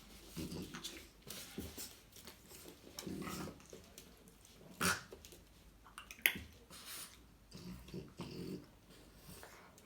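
Dogs growling in play: short low growls in several bursts, with a couple of sharp clicks about five and six seconds in.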